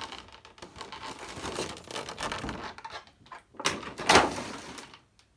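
Hands handling a plastic figure and its base out of the packaging: irregular rustling and scraping, then two loud knocks about three and a half to four seconds in, as of plastic parts being set down or fitted together.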